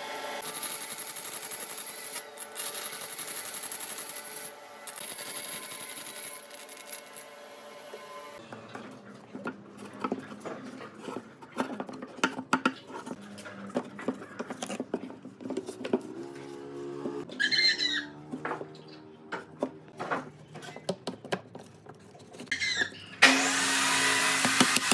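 Bandsaw running with a steady motor hum and blade whir for about the first eight seconds. Then notched pine pieces are fitted into slotted rings by hand: many wooden clicks and knocks, with short squeaks as wood slides in tight slots. A power tool starts up with a loud steady whir near the end.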